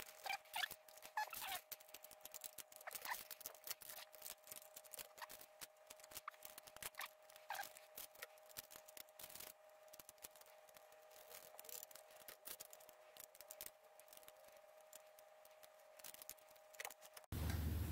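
Faint scattered clicks and taps of a brass engine mount and a small model steam engine being handled and fitted together, over a faint steady hum. A louder low hum comes in abruptly near the end.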